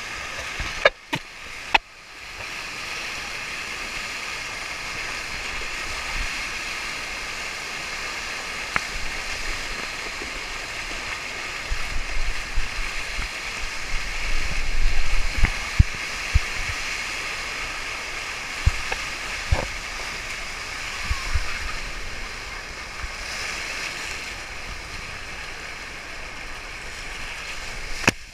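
Steady rush of a FlowRider surf machine's pumped sheet of water racing over the ride surface, heard close up with spray on the microphone. Louder low thumps and splashes come about halfway through.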